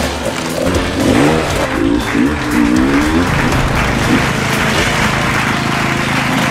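Crowd clapping and cheering, with a dirt bike engine running underneath.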